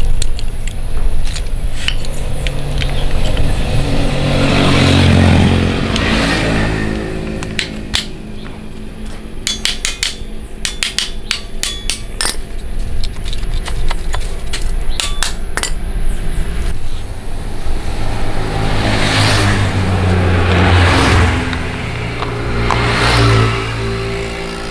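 Motor vehicle engines passing by twice, swelling and fading, near the start and again later. Between them come sharp metallic clinks as motorcycle drum-brake shoes and the backing plate are handled.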